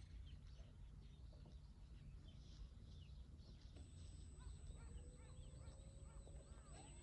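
Near silence: faint low wind rumble with scattered small bird chirps. From about halfway a faint steady high whine and a slowly rising hum join in as the model plane's motor begins to turn over at low throttle.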